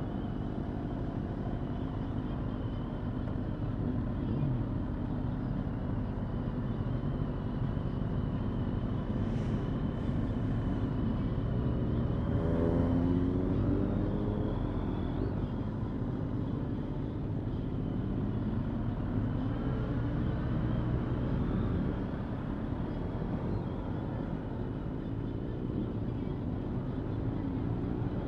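Motorcycle engines running at low speed in a slow-moving group of bikes, over a steady low rumble of road and wind noise. About halfway through, an engine note rises briefly as a bike accelerates.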